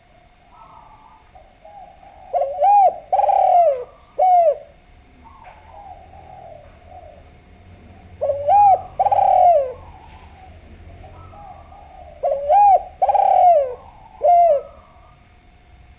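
Spotted dove (derkuku) cooing: three repeated phrases about four to five seconds apart. Each phrase is a short rising-and-falling note, a longer, louder coo and a short falling note, with softer low notes in between.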